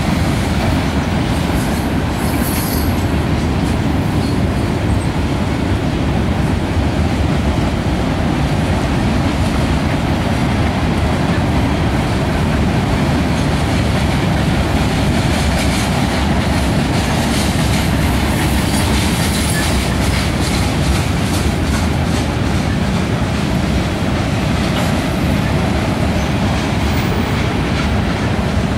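Freight train cars rolling past at a steady pace: a continuous rumble of steel wheels on rail with a clickety-clack over rail joints, and high wheel squeals now and then.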